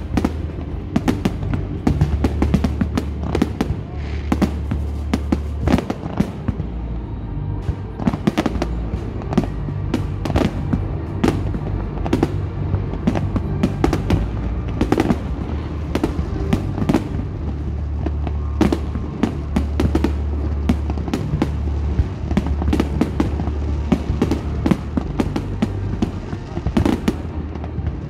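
Aerial fireworks bursting in a dense, unbroken barrage of bangs and crackles, several a second. Music with a deep, held bass line plays underneath.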